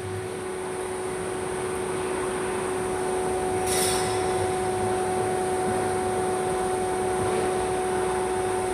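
CNC lathe running with a steady hum that grows slowly louder, as during a facing cut on a turned workpiece. A brief high-pitched scrape sounds about four seconds in.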